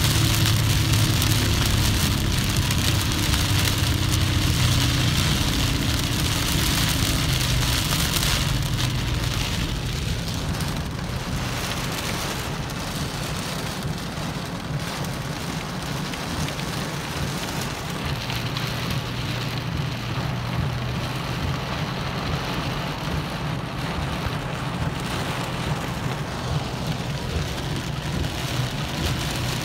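Rain pelting a moving vehicle in a storm, over the low steady hum of the engine and road noise. It is louder and hissier for roughly the first eight seconds, then eases off.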